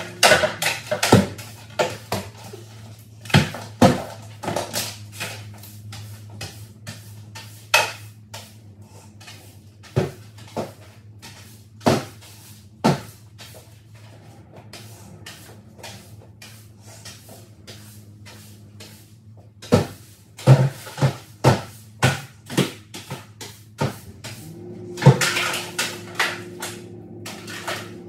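Irregular knocks and clatters of household items being picked up, moved and set down while a room is tidied, bunched near the start, again around two-thirds of the way through, and in a busy run near the end.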